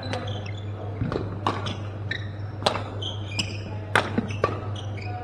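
Badminton rackets striking shuttlecocks: sharp smacks at irregular intervals, about two a second, mixed with short high squeaks from shoes on the court floor over a steady low hum.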